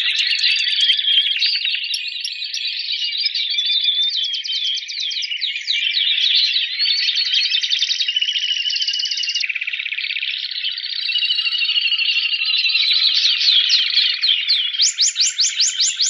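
Spanish Timbrado canary singing a continuous contest song: a run of fast rolling trills that change pattern every second or two, with a series of sharp sweeping notes near the end.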